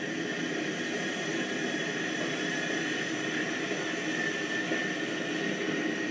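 Model trains running on the layout's track: a steady whir of small electric motors and wheel rumble, with a thin high whine running through it.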